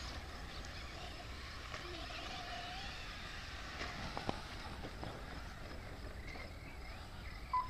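Radio-controlled short-course trucks racing, their electric motors giving a faint whine that rises and falls over a steady background hiss, with a couple of sharp clicks about four seconds in.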